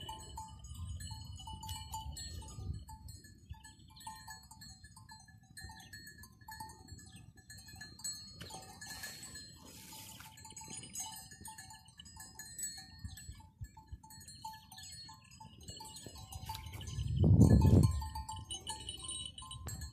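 Bells on grazing sheep tinkling on and off, over a low rumble of wind on the microphone, with a louder gust near the end.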